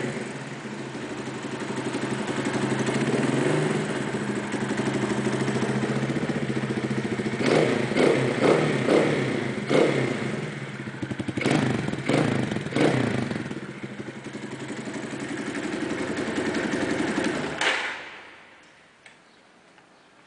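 AJP PR4 200 enduro's single-cylinder four-stroke engine idling, with several short throttle blips in the middle. It is switched off near the end.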